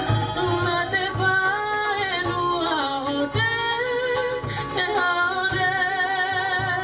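Live Cook Islands song: a woman singing with vibrato into a microphone, backed by strummed ukuleles and a steady low beat.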